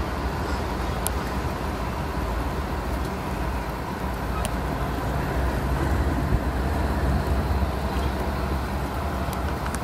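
A string of diesel-electric freight locomotives rolling past at close range: a steady low engine rumble mixed with wheel-on-rail noise.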